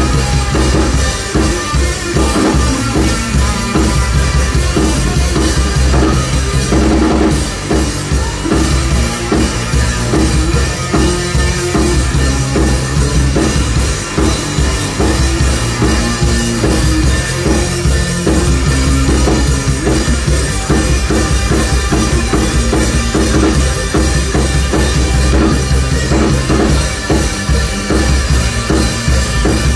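Live rock band playing: electric guitar, electric bass and drum kit, with a steady, loud drum beat and strong bass.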